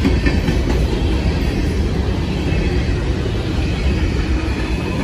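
CSX freight train's open-top hopper cars rolling past: a loud, steady rumble of steel wheels on the rails.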